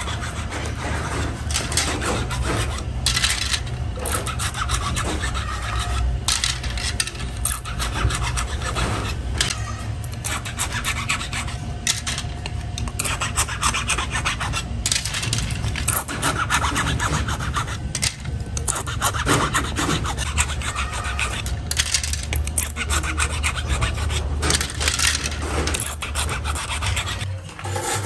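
Hand blade scraping and shaving moulding flash off white plastic switch plates: a steady run of short, irregular rasping strokes, over a steady low hum.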